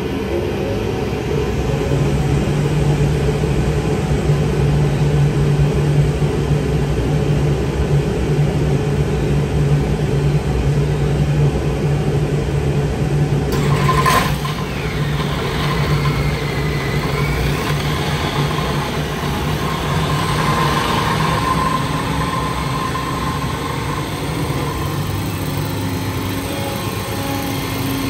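Rotax 912iS flat-four aircraft engine running steadily on a dyno while it warms up. About halfway through the sound changes abruptly, with a higher tone coming in over the engine note.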